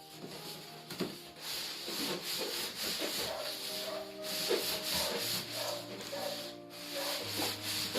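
Packaging rubbing and rustling in uneven strokes while being handled, over background music with held notes.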